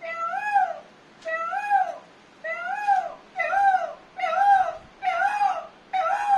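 A man imitating a peacock's call with his voice: about seven loud calls in quick succession, each rising and then falling in pitch, roughly one a second.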